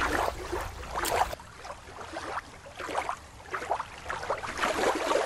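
Water splashing and lapping in irregular small slaps.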